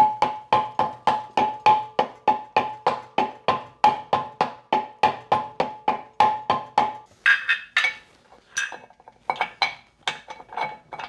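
Soft-faced mallet tapping a VW air-cooled engine's steel flywheel onto the crankshaft dowels, about four blows a second with the flywheel ringing at each one, to seat it. The tapping stops about seven seconds in, followed by a few lighter metallic clinks as small parts are handled.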